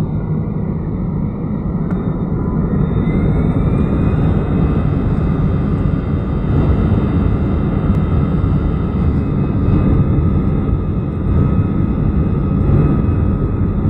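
Jet airliner's engines heard from inside the cabin as a steady low rumble. About three seconds in, a faint rising whine comes in and the sound grows louder as the engines spool up for take-off, then holds steady.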